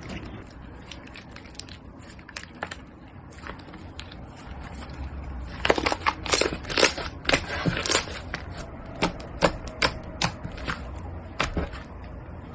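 Slime being squeezed and pressed by hand, making rapid sticky popping and crackling clicks that turn denser and louder about halfway through.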